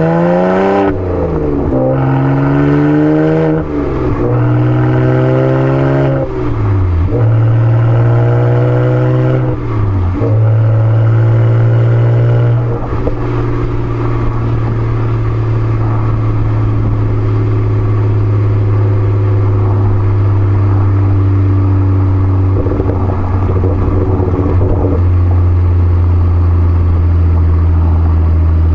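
BMW 135i's N54 twin-turbo inline-six exhaust through a straight center pipe and aFe cat-back, engine not yet warmed up. The engine speed climbs and drops several times in the first ten seconds or so, then holds a steady, slowly easing drone.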